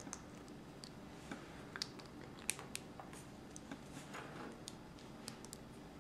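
Faint, scattered clicks and taps of small plastic Lego minifigure pieces being handled and fitted together.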